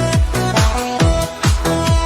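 Electronic dance music with a steady four-on-the-floor kick drum, about two and a half beats a second, under held synth chords.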